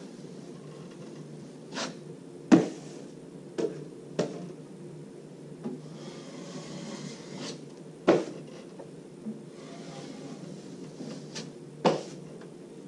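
A drywall finishing trowel knocks and taps about ten times while spreading the topcoat of joint compound on the wallboard joints, with a soft scrape between strokes; two knocks, a few seconds in and about two-thirds through, are the loudest. A steady low hum runs underneath.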